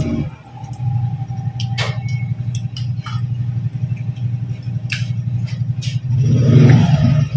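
Steady low rumble of an idling engine, swelling louder for a moment near the end. A few sharp clinks of spoons on plates sound over it.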